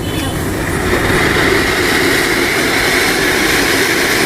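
A ground firework, such as a fountain, burning with a steady rushing hiss that builds about a second in and then holds.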